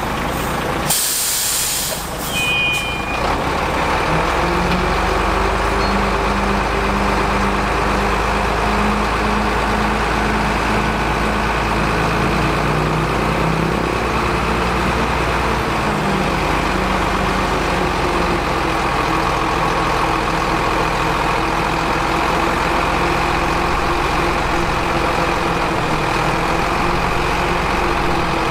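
A heavy 10-wheel dump truck's diesel engine running steadily, with a short, sharp hiss of compressed air about a second in, typical of an air brake releasing. The engine holds a slightly higher speed for about twelve seconds, then settles a little lower.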